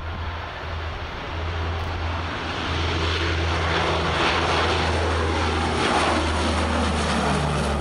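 Lockheed C-130H Hercules on a low pass overhead, its four Allison T56 turboprops giving a deep, steady propeller drone under a rushing engine noise that builds to a peak as it passes over. Near the end the pitch drops as it moves away.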